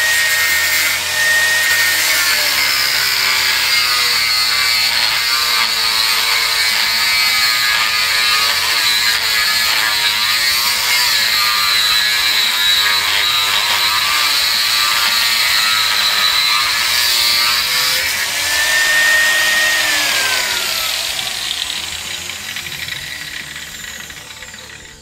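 Angle grinder grinding into a curved iron bar held in a vise, the motor's whine pulled down under load. Near the end the disc comes off the metal and the whine rises, then it falls away and fades as the grinder is switched off and spins down.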